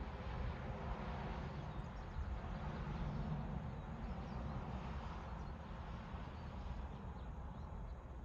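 Storm wind outdoors, a steady rushing noise with a low rumble, easing slightly near the end.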